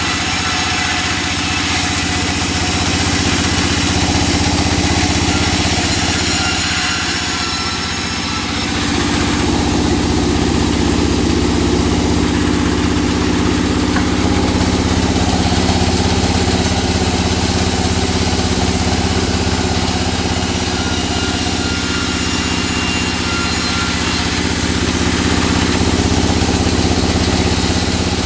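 Engine-powered saw running steadily while sawing teak, its engine note shifting about nine seconds in.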